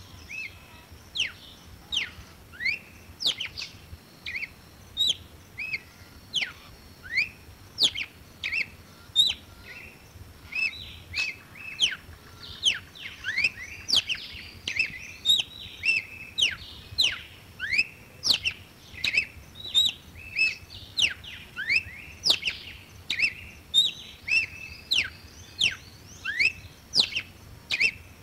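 Red-cowled cardinal singing: a continuous run of short, clear whistled notes, many sweeping sharply downward, more than one a second.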